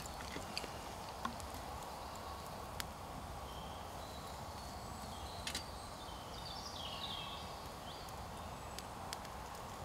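Small wood fire crackling in a portable fire pit, with scattered sharp pops over a steady quiet hiss of woodland air. A bird calls a few times in the middle.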